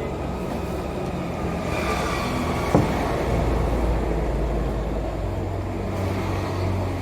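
Low rumble of a large vehicle engine, swelling a couple of seconds in and staying strong, with one sharp click near the middle.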